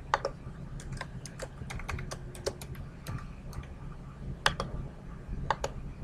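Computer keyboard being typed on: a quick run of keystrokes entering a password in the first three seconds, then a few single key or button clicks near the end, over a low steady hum.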